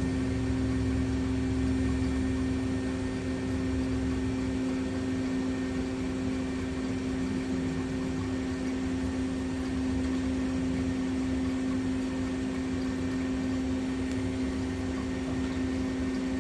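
PolyGim Diamond 42CSL CNC Swiss lathe running its back-working live tools, giving a steady machine hum with one strong tone. A lower rumble eases off about four seconds in.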